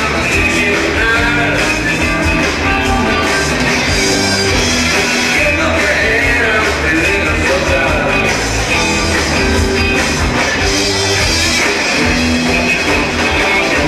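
Rock band playing live and loud: electric guitars over a drum kit, heard over the PA from the audience.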